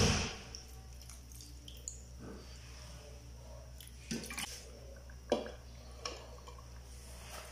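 Liquid poured from a glass cup into a nonstick pan of raw chicken, dripping and splashing, followed by a few light clicks as a glass lid is set on the pan, over a steady low hum.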